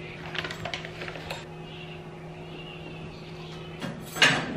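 A paper-and-plastic mix packet crinkling as it is torn open, followed by a quieter stretch and a louder clatter near the end.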